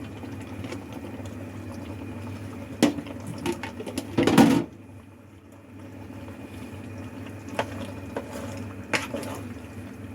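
Pan of pasta shells, meatballs and tomato sauce simmering and bubbling while a utensil stirs it, with scattered knocks against the pan. A louder burst of clattering about four seconds in is the loudest sound.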